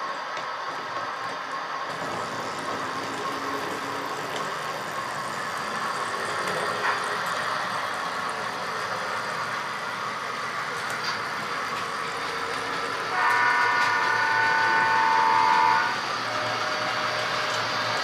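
Steady running rumble of HO scale model trains on the layout. About 13 seconds in, a model locomotive's electronic multi-tone train horn sounds one loud held chord for about two and a half seconds.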